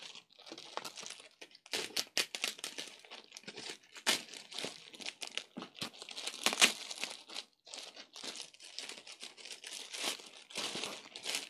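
Packaging being torn and unwrapped by hand: irregular crinkling, crackling and tearing, with one sharper crackle about two-thirds of the way through.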